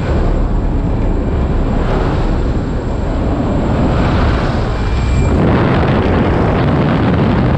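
Loud, steady rush of wind and aircraft engine noise through the open door of a single-engine high-wing jump plane at altitude, getting a little louder and brighter about halfway through as the skydivers exit.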